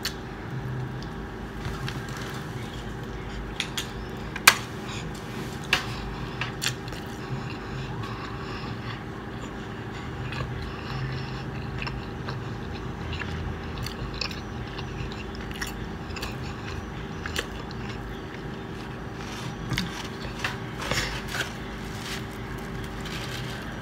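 Close-up biting and chewing of a slice of meat lover's pizza, with a scatter of sharp clicks and smacks; the loudest comes about four and a half seconds in. A steady low hum runs underneath.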